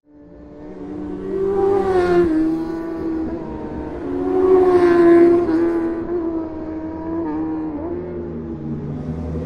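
Racing motorcycles passing at speed on a circuit, their engines at high revs, the pitch climbing and then dropping sharply at gear changes. The sound fades in at the start and is loudest about two and five seconds in.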